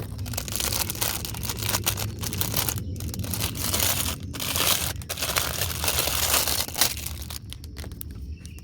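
Packaging crinkling and tearing with many sharp crackles as a jump rope is unwrapped, dying down near the end.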